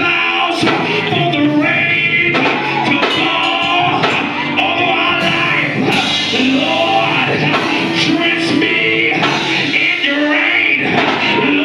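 Live gospel praise-break music: singing voices over a band with quick percussive hits.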